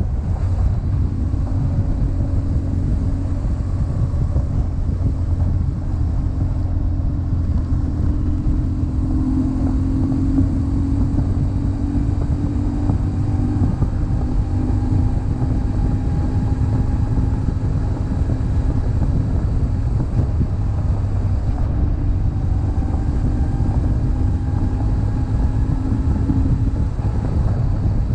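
BMW GS boxer-twin motorcycle engine running at a steady cruise, its pitch drifting only slightly, over a constant low rush of wind and road noise.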